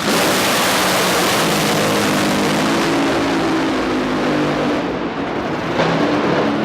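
Top Fuel dragster's supercharged nitromethane V8 running at full throttle: a loud, dense crackle that starts abruptly. The highest sounds fall away about five seconds in.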